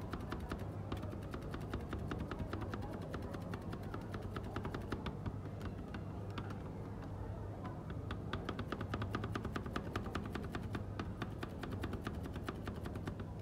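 Steel spatula blades chopping Oreo ice cream mixture on the frozen steel plate of a rolled ice cream machine: rapid clacking taps, several a second, that thin out for a second or two around the middle, over a steady low hum.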